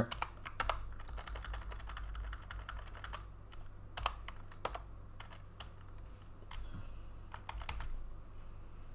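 Computer keyboard typing: scattered bursts of key clicks with pauses between them, over a low steady hum.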